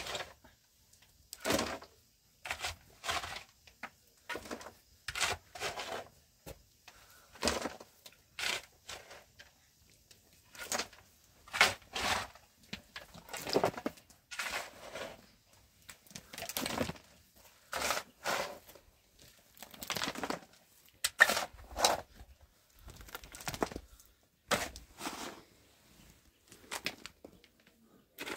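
Steel shovel scraping and scooping through gravelly soil and sand, in repeated short strokes roughly once a second with brief pauses between.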